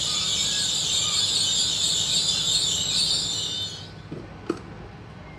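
Loud, steady hiss of air venting from a train at the station, cutting off suddenly about two-thirds of the way in, followed by a single sharp click.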